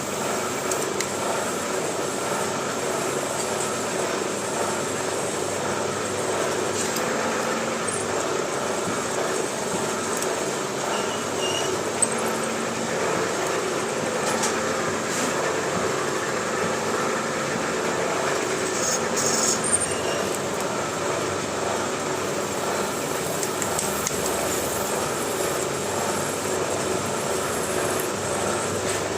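Milling machine running steadily while drilling a retainer, with a few brief sharp clicks.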